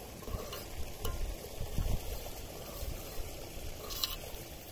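Onion and ground-spice masala frying in oil in an aluminium pot, stirred with a slotted metal spoon. A low sizzle with a few light knocks of the spoon against the pot.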